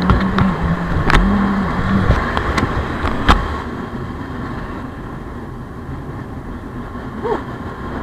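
Motorcycle engine running on the move, with road noise and a few sharp knocks in the first few seconds. A steady low drone sits over it for the first two seconds.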